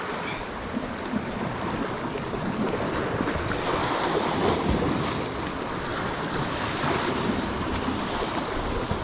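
Sea washing and surging against a rocky shore, with wind noise on the microphone.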